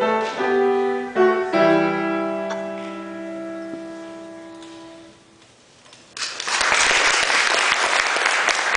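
Piano playing the last few notes of a piece, ending on a held chord that rings and fades away over about three seconds. After a short lull, an audience breaks into applause about six seconds in.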